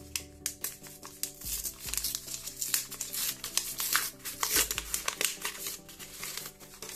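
A sticker packet's wrapper crinkling and tearing as it is ripped open and the stickers are pulled out, with many sharp crackles, over background music.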